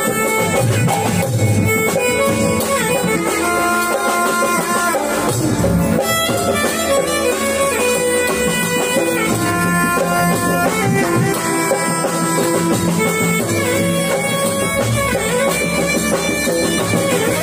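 Live instrumental kirtan music: an electronic keyboard playing a sustained melody with pitch bends over drums and a hand drum.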